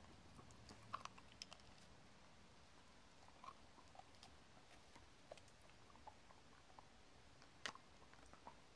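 Dogs gnawing raw beef rib bones: scattered faint cracks and clicks of teeth on bone, the sharpest near the end.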